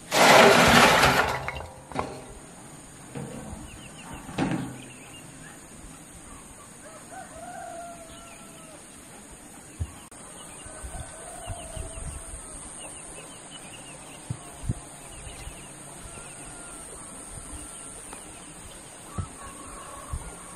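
Fired clay bricks tipped out of a metal wheelbarrow, clattering onto the soil for about a second, followed by a couple of single knocks. After that, chickens call faintly throughout. Occasional light clicks come as bricks are set down one by one, over a steady high insect-like hiss.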